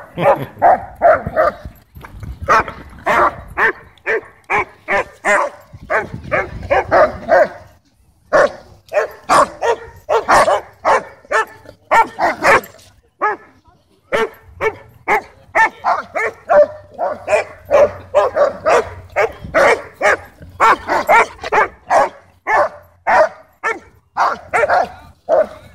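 Dogs barking loudly and rapidly, a few barks a second in long runs with short breaks: a German Shepherd barking to demand a ball, with a German Shorthaired Pointer barking back at it.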